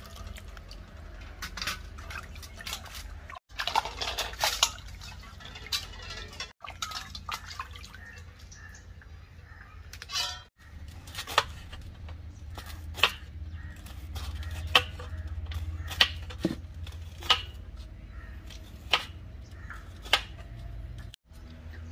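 Bitter gourds being washed by hand in a steel bowl of water, with splashing and dripping. Then a knife slices bitter gourd into rounds on a wooden board, a sharp chop about every second and a half. A steady low hum sits underneath.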